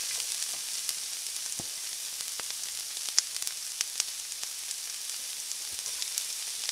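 Sliced peppers and meat sizzling in a hot pan: a steady frying hiss with scattered sharp pops and crackles.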